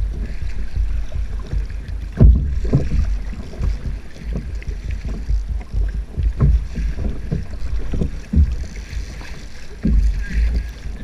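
Wind buffeting the microphone and choppy water slapping against a kayak's hull, with irregular low knocks and thumps, the loudest about two seconds in.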